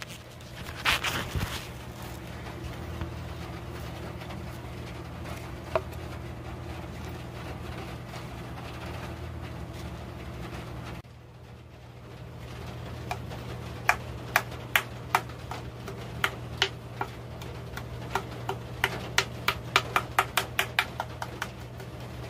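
Steady low hum under a run of sharp, dry taps that starts about halfway through and quickens near the end, to about three or four a second: fingers tapping on the hollow turned burl-root vase.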